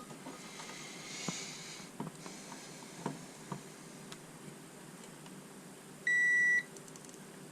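A single electronic beep of about half a second, typical of a multimeter's continuity tester sounding as the probes bridge a circuit-board connection, after a few faint clicks.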